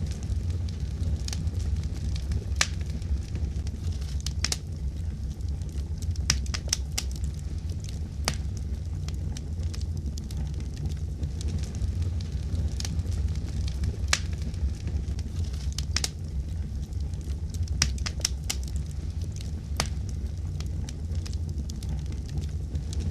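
Fire crackling, with irregular sharp pops and snaps, several a second, over a steady low rumble.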